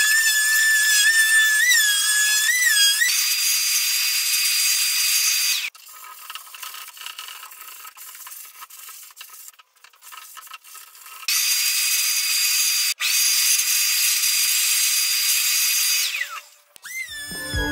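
Electric finishing sander running on a wooden cabinet door, a high motor whine that wavers in pitch for the first few seconds, then steadies. It stops about six seconds in, leaving faint scratching of sandpaper rubbed by hand. A similar motor whine starts again around eleven seconds and winds down with a falling whine about sixteen seconds in.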